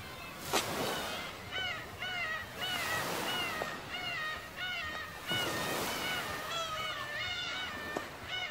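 Surf washing over a rocky shore, with a run of short, arching high-pitched calls repeating about twice a second over it.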